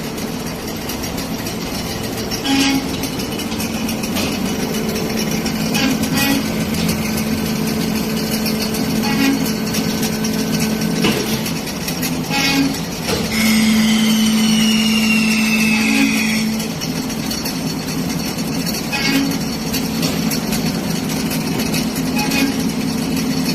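Amada HA-500 band saw running with a steady hum and scattered short clicks. About 13 seconds in, a louder whine with a slowly falling high pitch lasts about three seconds.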